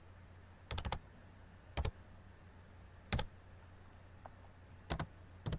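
Scattered clicks at a computer, keys or buttons pressed one at a time, about one every second or so with some in quick pairs, over a faint low hum.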